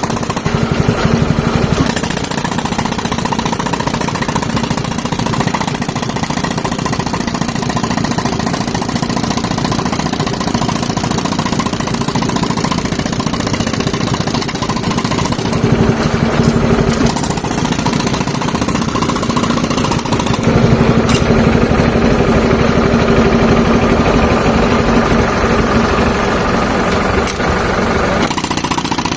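Tractor engine running steadily, driving an air compressor, with a fast, dense mechanical rhythm throughout; it grows louder for a while about halfway through and again a little after.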